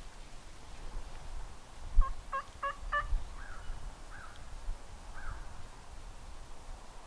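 Turkey yelping: four quick, evenly spaced yelps, then three softer notes that slur downward. A low thump comes just before the first yelp.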